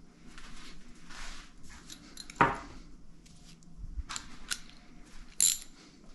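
Metal tools and engine parts being handled: small clicks and scrapes with two sharp metallic clanks, the louder about two and a half seconds in and another about five and a half seconds in.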